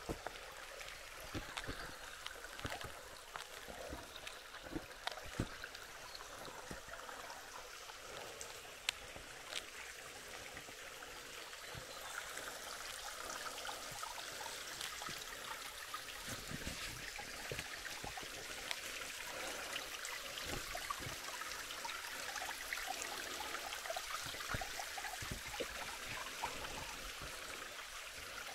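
A creek running, a steady rushing trickle that grows a little louder about halfway through. A few light clicks and knocks sound over it in the first third.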